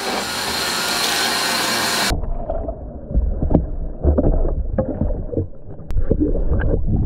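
Steady loud rushing of water. About two seconds in it switches abruptly to a muffled underwater sound of gurgling and bubbling, with irregular low thuds and short knocks, as the submerged engine and its cover let out a few air bubbles.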